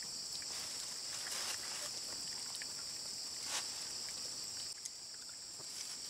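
Steady, high-pitched chorus of insects, with a couple of brief soft rustles about one and a half and three and a half seconds in.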